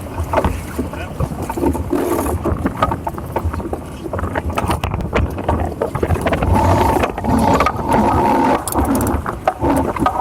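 Wind and water noise aboard a Hobie Cat 16 sailing catamaran: a steady low rumble of wind on the microphone with frequent sharp slaps and knocks of water against the hulls.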